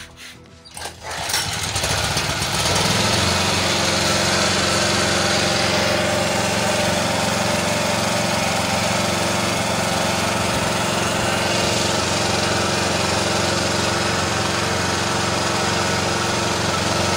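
Sumec Firman SPG2900E2 petrol generator's single-cylinder four-stroke engine coming up to speed about a second in, then running steadily.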